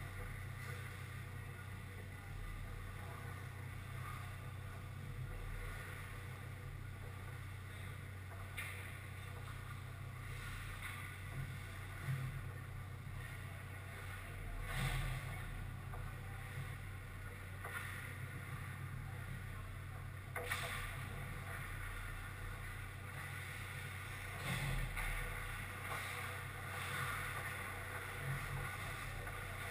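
Ice hockey rink ambience: a steady low hum under a handful of brief, faint knocks and clicks of play on the ice, such as sticks, puck and skates.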